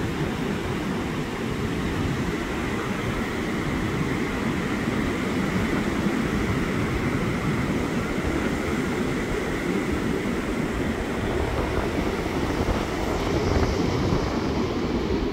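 Ocean surf breaking and washing up the beach: a steady, deep rushing with no separate crashes standing out.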